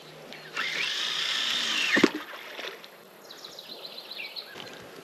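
Casting reel's spool whirring as line pays out on a cast, rising and then falling over about a second and a half. It ends in a sharp knock about two seconds in.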